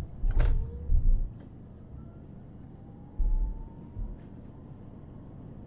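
Car driving, heard from inside with a steady low road rumble. Heavy low thumps come in the first second and again about three seconds in, with a sharp click about half a second in and a faint pitch rising slowly in the middle.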